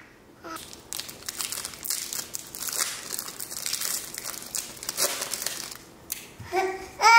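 Crinkly plastic wrapper of a strawberry wafer pack being handled, a dense run of crackles and rustles lasting several seconds. A baby babbles briefly near the end.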